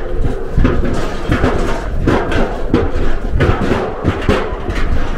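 A car towing a caravan driving across a steel truss bridge: a low road rumble with rapid, irregular knocks and thumps, several a second.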